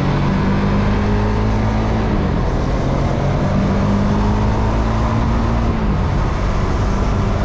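Motorcycle engine running while riding at road speed, with heavy wind and road noise. The engine pitch rises and falls a few times as the speed or gear changes.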